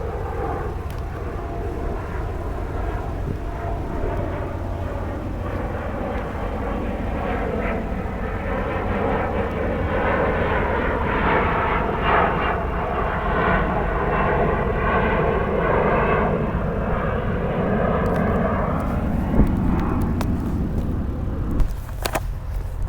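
An airplane passing overhead, its engine sound swelling to a peak about halfway through and fading away near the end, over a steady low rumble.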